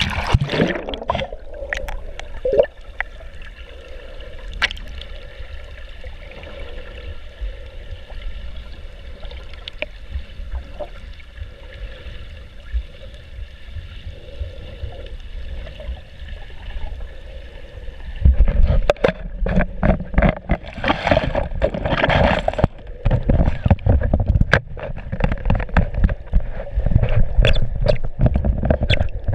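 Muffled underwater water noise picked up by a GoPro in its waterproof housing: a splash as the camera goes under, then a low steady wash. About two-thirds of the way through it turns louder, with a heavy low rumble and irregular bursts of water moving over the housing.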